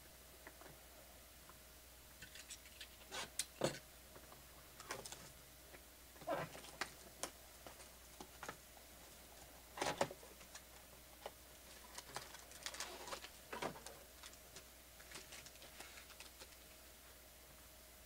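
Trading-card boxes and foil-wrapped packs being handled on a table: scattered taps, clicks and crinkles, irregular and faint, over a faint steady hum.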